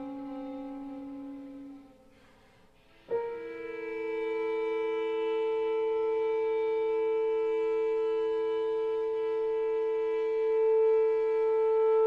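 Contemporary chamber music for violin, bass clarinet and piano: a held note fades away, a second or so of near quiet follows, then about three seconds in a long steady note enters sharply and is held, with the violin bowing, swelling slightly near the end.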